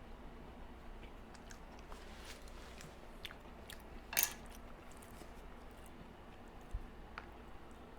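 Close-miked chewing of chocolate cake with cookie bits, soft wet mouth clicks throughout. A louder short scrape about four seconds in and a brief low thump near seven seconds.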